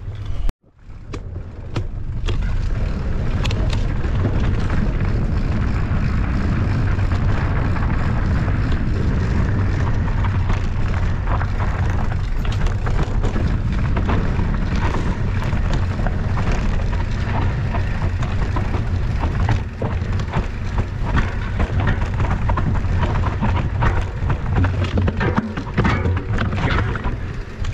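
Mountain bike riding fast over a rough trail: a loud, steady wind rumble on the microphone with a constant rattle of knocks and clicks from the bike and ground. It cuts out briefly about half a second in, then comes back.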